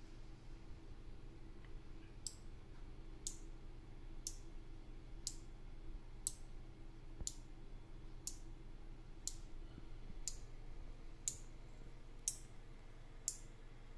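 Four-channel electromagnetic relay modules clicking as they switch, one sharp click about every second from about two seconds in. The clicks mark a microcontroller stepping through a random relay sequence once a second after motion detection is turned on.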